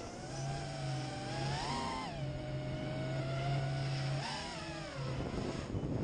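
iFlight Archer 220 FPV quadcopter's brushless motors and propellers whining in flight, heard from the onboard camera. The pitch rises and falls with throttle punches at about two seconds and again at about four and a half seconds.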